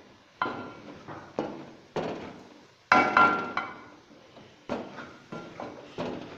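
Wooden spatula knocking and scraping against a metal karahi while stirring spices into fried onions: about a dozen irregular knocks, one or two a second, each with a brief metallic ring.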